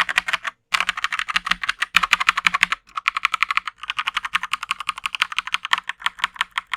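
Fast typing on an Akko 3087 World Tour Tokyo full-size mechanical keyboard: a dense, rapid run of key clacks, broken by two short pauses, about half a second in and just before three seconds.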